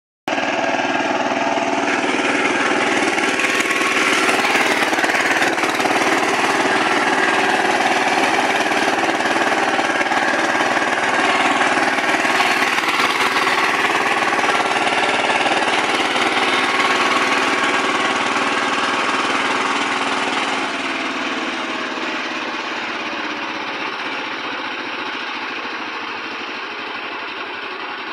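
Kirloskar Mega T15 power tiller's single-cylinder diesel engine running steadily under load as it works the soil to form bunds. It fades somewhat over the last several seconds.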